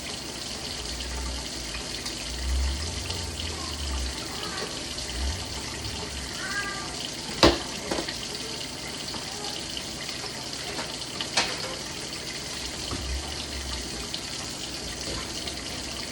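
A steady rushing hiss, with a few sharp knocks, the loudest about seven and a half seconds in.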